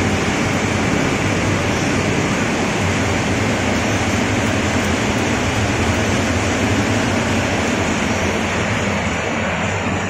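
Quail egg peeling machine line running: a loud, steady, even machine noise with a low hum underneath.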